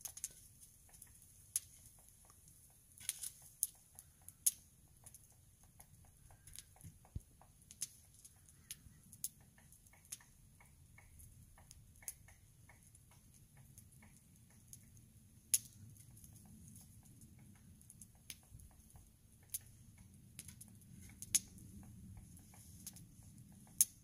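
Irregular sharp ticks and taps, a few a second at their busiest, over a faint low rumble.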